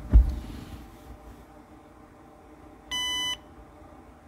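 A low thump right at the start, then about three seconds in a single short electronic beep from the Aces Killshot EFI handheld controller as it restarts after a software update from USB.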